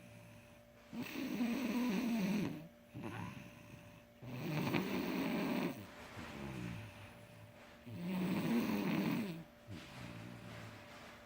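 A boy snoring in his sleep. Three loud snores come about three and a half seconds apart, each followed by a quieter breath.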